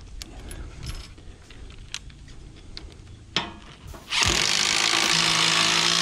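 Light clicks and a knock as a galvanized lag bolt is set by hand, then about four seconds in a DeWalt cordless drill starts up with a loud rattling whir, driving the lag bolt through the steel sawmill rail into the wooden beam.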